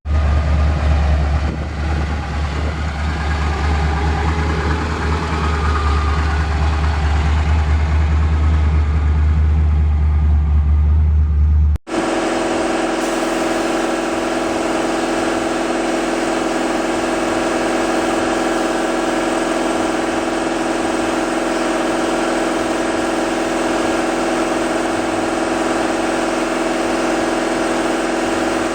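1978 Camaro Z28's V8 engine running: deep and low for about twelve seconds, then after a sudden cut, idling steadily with an even hum.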